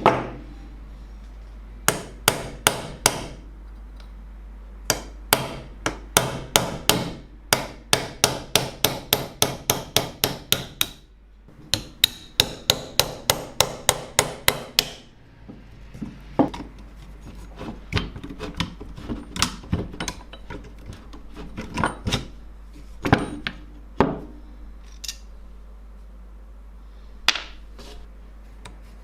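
Hammer blows, in quick runs of about three to four a second through the first half, then slower, scattered single blows.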